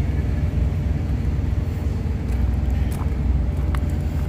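Steady low rumble of an idling diesel truck engine, with a few faint footstep clicks on gravel.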